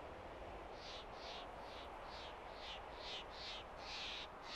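A bird calling a quick series of short, high notes, about three a second, the later ones drawn out longer, over a steady hiss of mountain wind.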